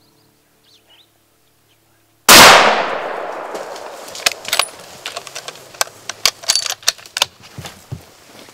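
A single very loud gunshot about two seconds in, fired at a black bear at a bait site, with its report dying away over a second or two. A string of sharp clicks and knocks follows.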